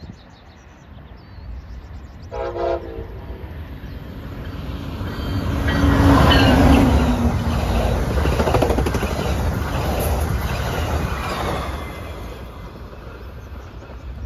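Amtrak Pacific Surfliner passenger train sounds one short horn blast, then passes close by. The rumble of wheels on rail and their clatter build to a peak about six seconds in, then fade as the bilevel cars go by.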